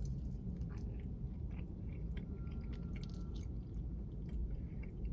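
A person chewing a bite of a soft pumpkin spice muffin with cream cheese filling, close to the microphone: irregular wet mouth clicks and smacks over a steady low hum.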